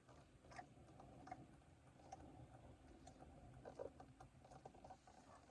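Near silence with a few faint, scattered clicks and small ticks from quiet chewing and handling of fast food.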